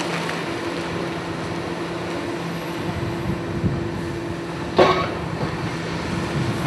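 Heavy demolition machinery running steadily with a low, even engine hum. There is one sharp bang about five seconds in.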